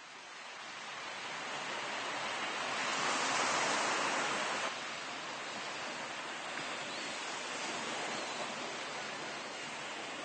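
Steady hiss of sea ambience, surf and wind, fading in at the start and swelling, then dropping suddenly to a lower, even level a little before halfway through.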